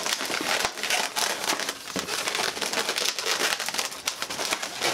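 Latex 260 modelling balloons rubbing against each other and against the hands as leg bubbles are twisted into a balloon bunny: a dense, irregular run of short scrapes and rubs.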